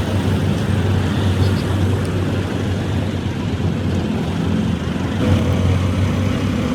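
Engine running steadily with a low hum, amid road traffic noise.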